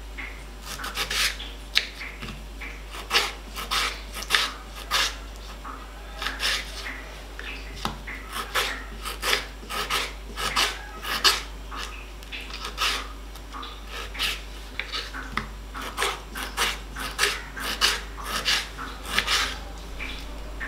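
Kitchen knife slicing tomatoes on a wooden cutting board: repeated short cuts and knocks of the blade against the board, in uneven runs with short pauses.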